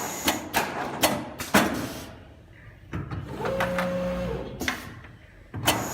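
Four-head CNC sewing machine making a series of sharp clicks and knocks, with a short steady motor hum in the middle.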